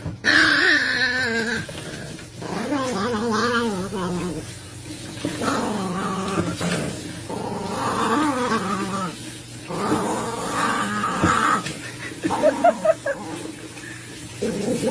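Small black-and-tan dog growling and grumbling in a run of drawn-out, wavering bouts, protesting at being bathed, with a few short sharper snarls near the end.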